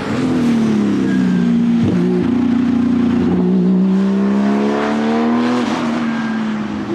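Porsche 935 K3 Kremer's 3.2-litre twin-turbo flat-six race engine running hard: its note falls for the first two seconds, breaks briefly, then climbs slowly and steadily for about four seconds before dropping away near the end.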